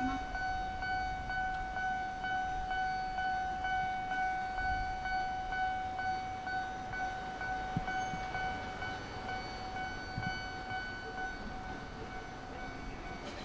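A steady high-pitched tone with a stack of overtones, held without a break, over a low rumble; it fades slightly near the end.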